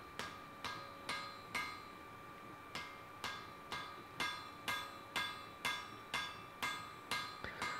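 Hand hammer striking a glowing wrought-iron axe head on an anvil, about two blows a second, the anvil ringing after each blow, with a brief pause about two seconds in. The blows are blending a fresh forge weld of the high-carbon steel bit into the wrought-iron body.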